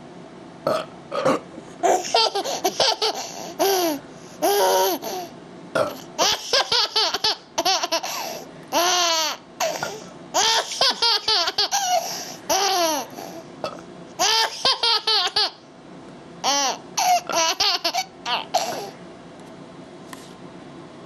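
A child laughing hard in long fits of high-pitched giggles, burst after burst, stopping near the end.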